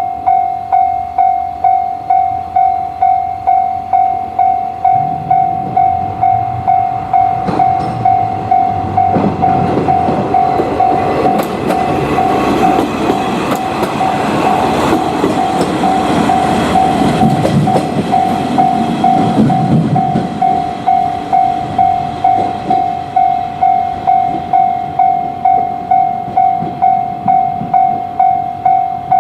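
Japanese railway level crossing warning bell ringing "kan-kan" at a steady even rhythm. A train passes over the crossing from about five seconds in, its wheels clattering over the rail joints, and fades away near two-thirds through while the bell keeps ringing.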